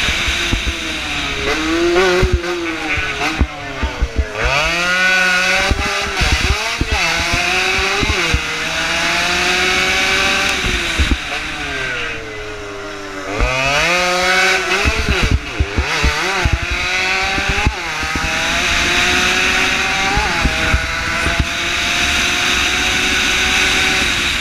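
Race-tuned 115cc single-cylinder motorcycle engine at speed, heard from on the bike, revving high and rising through the gears. The revs fall away and climb again twice, about four and thirteen seconds in. Wind buffets the microphone throughout.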